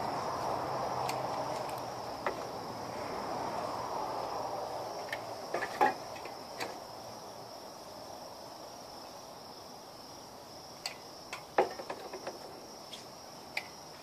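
A steady high-pitched insect chorus, typical of crickets, with a soft rushing haze in the first few seconds that fades away. A few light clicks and taps sound around the middle and again near the end.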